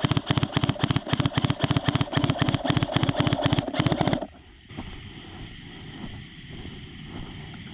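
A rapid string of loud, sharp cracks, many to the second, like a firecracker string or a full-auto burst, that cuts off abruptly about four seconds in, leaving a steady outdoor hiss.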